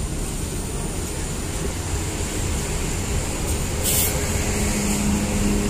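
Mercedes-Benz OH 1626 coach's diesel engine running as the bus moves off, with a short hiss of air about four seconds in.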